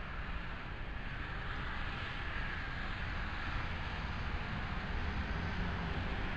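SEPTA Silverliner IV electric commuter train approaching from a distance: a low, steady rumble that grows slowly louder.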